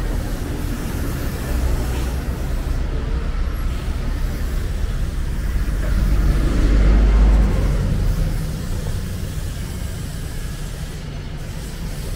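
Road traffic: motor vehicles running, with one passing close and loud about six to eight seconds in.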